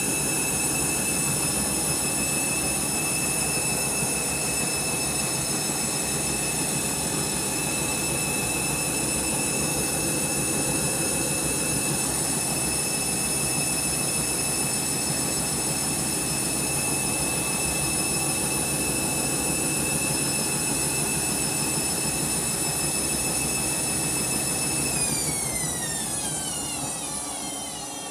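Candy washing machine's motor whining steadily at high drum speed over a rushing churn, then winding down with a falling whine in the last few seconds: the spin being aborted by a sud lock.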